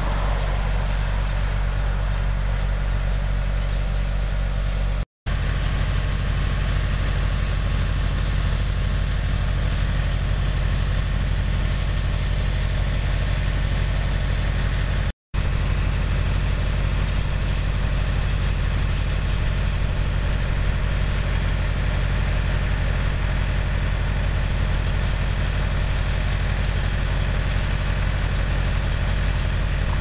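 An engine running steadily at an even speed, with no change in pitch; the sound cuts out briefly twice.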